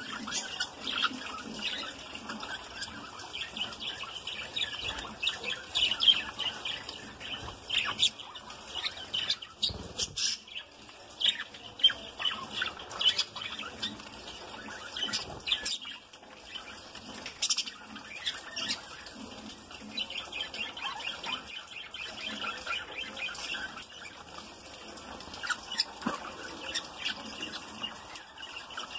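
A flock of budgerigars chattering: many overlapping chirps and squawks, with no let-up and a few sharper, louder calls standing out.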